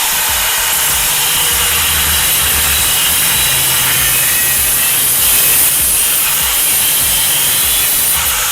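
Angle grinder cutting through a square metal rod, a loud steady grinding that cuts in abruptly at full level.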